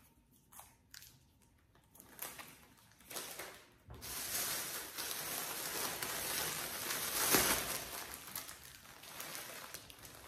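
Plastic shopping bags and wrappers rustling and crinkling as groceries are rummaged through and a packaged loaf of bread is pulled out. A few light taps of handling come first; the rustling starts about four seconds in and is loudest a little after the middle.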